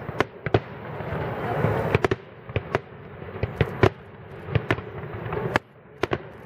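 Aerial fireworks shells bursting: more than a dozen sharp bangs at uneven spacing, with a steady wash of noise between them.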